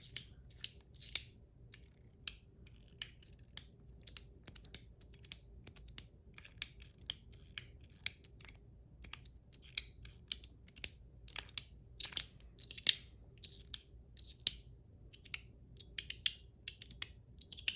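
Metal Toys DZ Zircuti Top C metal fidget toy being fidgeted in the hand: a run of small, sharp metallic clicks, irregular and a few per second.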